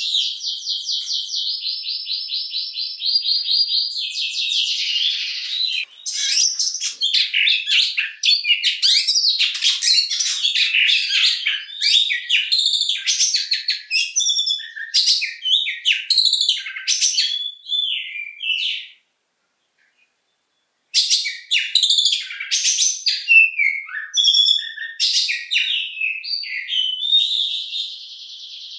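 Oriental magpie-robin singing: a rapid buzzing trill for the first few seconds, then a long string of varied short whistled phrases. The song cuts out completely for about two seconds midway, resumes, and the buzzing trill returns near the end.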